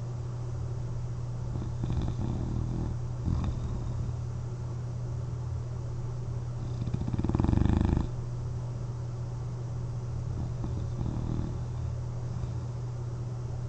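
A sleeper lying on their back, wearing a CPAP mask, snoring: one loud snore lasting about a second, past the middle, and fainter snoring breaths early and late. A steady low hum runs underneath.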